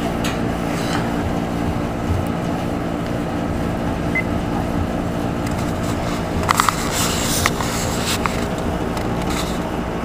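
Steady mechanical hum of boiler-room machinery running, several low tones held constant. A few brief clicks and rustles come about six and a half to seven and a half seconds in.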